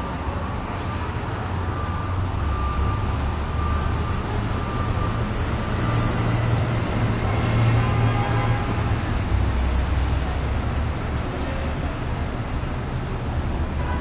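City street traffic noise: a steady low rumble of vehicles running on the road.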